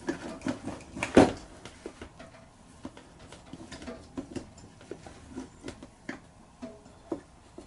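Irregular small clicks and knocks of metal carburetor parts being handled and worked apart by hand on a Honda VFR400R carburetor bank, with one louder knock about a second in.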